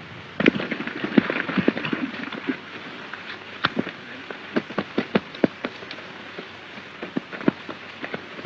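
Horse hoofbeats on hard ground: a quick cluster of clops about half a second in, then uneven single clops, over the steady hiss of an old film soundtrack.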